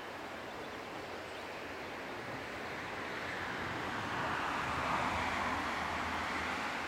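Steady rush of river water flowing over a shallow stony bed, with a broad whoosh that builds from about two seconds in, peaks around five seconds and fades toward the end.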